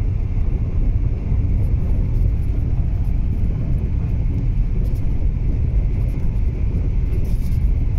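Car driving on an unpaved gravel road, heard from inside the cabin: a steady low rumble of tyres on gravel and running gear.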